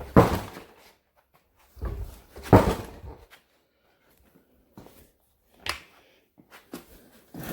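A few separate knocks and clunks of hand work on a carburetor, with the loudest just after the start and about two and a half seconds in, and fainter ones near the end.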